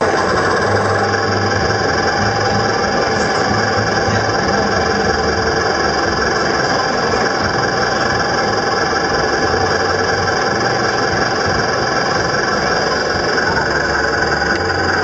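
Steady idling-engine sound from the RC semi-truck, a low throb that comes and goes under several steady high tones.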